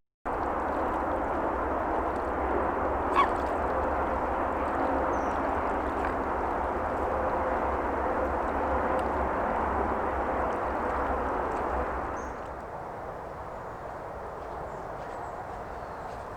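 Steady rushing of water flowing in a small stream, dropping in level about twelve seconds in.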